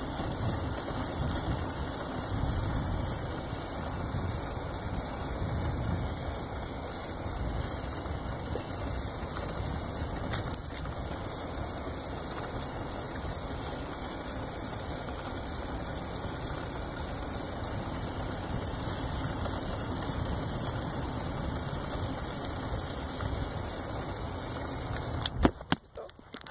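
Electric bike with a Bafang 750 W motor ridden slowly on pavement: wind buffeting the microphone and road rumble, under a steady high-pitched whine with a fast flutter. The sound drops away abruptly about a second before the end.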